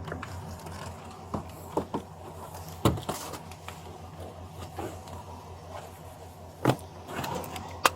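A few scattered knocks and clicks over a steady low hum as a man is seated in the back of a police car, the sharpest knock about three seconds in and another near the end.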